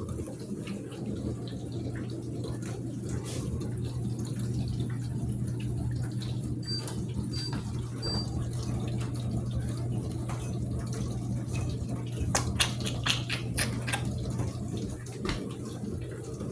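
Dishwasher running a wash cycle: a steady motor hum with water sloshing inside. A quick run of sharp clicks and knocks comes about twelve seconds in.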